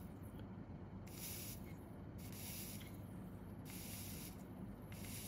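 Flux sizzling under a soldering iron as solder is fed onto circuit-board connector pins to reflow the joints. Soft hissing spells come and go about every second and a half.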